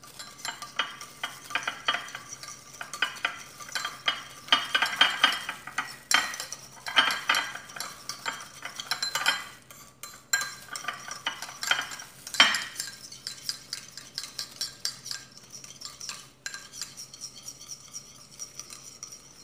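A metal spoon stirring salad dressing in a small ceramic bowl: a fast, continuous run of clinks and scrapes against the bowl, with one sharper knock about twelve seconds in, easing off near the end.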